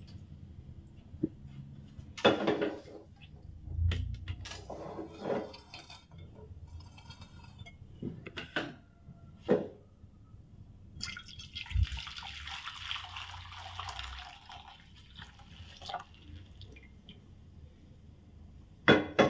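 Cooked soy milk poured from a frying pan into a glass dish, trickling and dripping, with scattered knocks and clinks as the pan is handled. There is a steadier pour for a few seconds around the middle.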